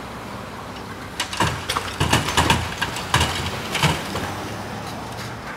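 Street traffic passing, including a pickup truck towing a travel trailer, with a run of loud clattering knocks and thumps lasting about three seconds before the steady traffic sound carries on.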